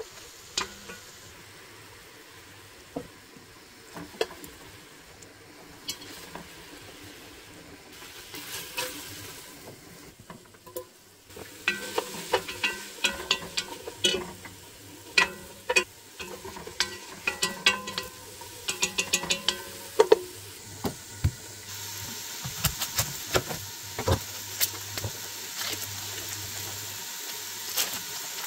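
A wooden spoon stirring and scraping browned beef in a stainless steel pot over a low sizzle, with scattered clicks at first. About halfway through, diced red onion is stirred in the pot, with a dense run of sharp clicks and scrapes of the spoon against the metal. Near the end, a steadier hiss with occasional clicks.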